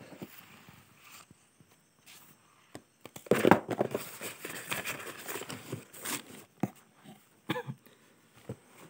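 Paper pages of a book being turned and handled: scattered soft taps and rustles, with a longer, louder rustle from about three to six seconds in.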